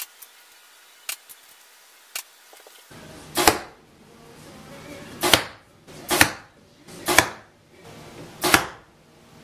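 Arrows striking an archery target: five hard hits spaced roughly a second apart, each a short sharp thwack. Before them, a few light clicks as arrows are drawn out of a PVC tube arrow holder.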